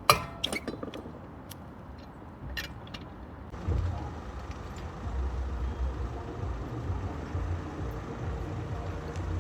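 A few sharp clicks of a wheel brace working tight wheel nuts loose on a car, the loudest right at the start, followed by a steady low rumble typical of a vehicle.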